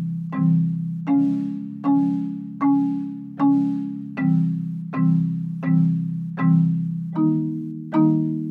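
Concert marimba played with four mallets: low block chords of several notes struck together at a slow, even pulse, a little more often than once a second, each ringing and fading before the next. The chord changes every three or so strikes.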